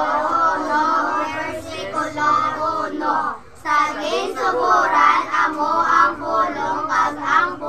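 A group of children reading a Bible verse aloud in unison from printed leaflets, their voices overlapping, with a brief pause about three and a half seconds in.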